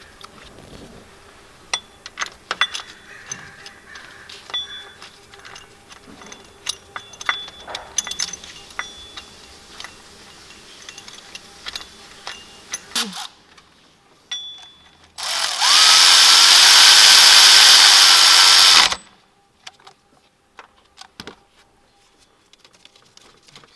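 Scattered clicks and clinks of hand tools on metal parts, then a cordless power tool runs for about three and a half seconds, its pitch rising as it spins up, driving the new idler pulley's bolt in, and stops suddenly.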